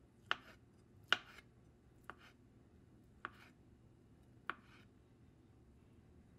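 Chef's knife slicing a small boiled potato on a plastic cutting board: five separate knocks of the blade on the board, about a second apart.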